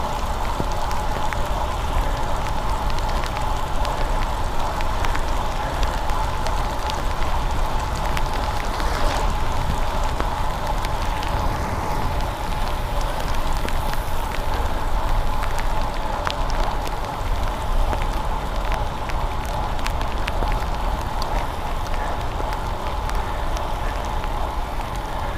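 Bicycle ridden through the rain on a wet road: a steady wash of tyre spray and rain noise with a low wind rumble on the microphone, scattered ticks of raindrops hitting the camera, and a steady high hum running underneath.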